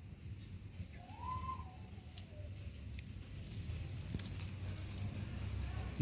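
Faint clicks and rustles of hands handling the wiring of a washing-machine motor, over a low steady hum. About a second in, one faint tone rises and then slowly slides down.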